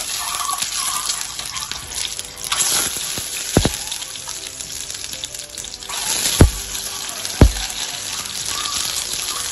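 Hot oil sizzling steadily as peeled, pricked boiled eggs fry in a non-stick pan, with three sharp pops: one a little over a third of the way in, and two about a second apart after the middle.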